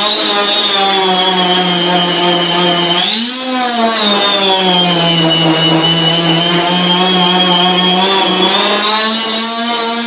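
Electric power tool running steadily in a bow-making workshop. Its pitch rises briefly about three seconds in, then sags and slowly climbs back.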